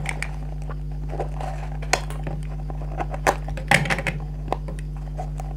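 A handful of sharp small metallic clicks at uneven intervals, the loudest a little past halfway, as staples are pried out of a stapled satin-fabric cone with the remover end of a handheld stapler, alongside handling of the fabric.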